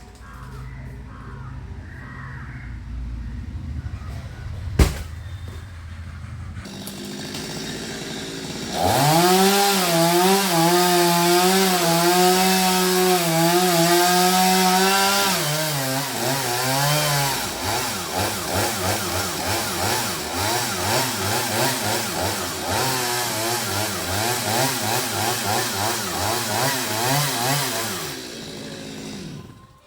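Chainsaw cutting coconut palm wood. It comes up to full throttle about a third of the way in, its pitch wavering under load. In the second half it drops to a lower, rapidly pulsing pitch, and it cuts off shortly before the end. A single sharp knock comes before the saw speeds up.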